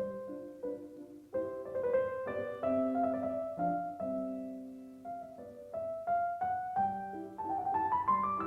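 Background piano music: a slow, gentle melody over soft chords, with a held chord fading in the middle.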